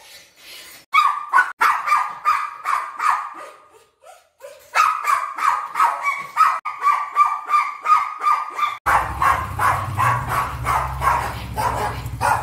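Small spitz-type dog barking and yelping shrilly and rapidly, several times a second, protesting its owner leaving. About nine seconds in, a motorcycle engine starts and runs with a low rumble under the barking.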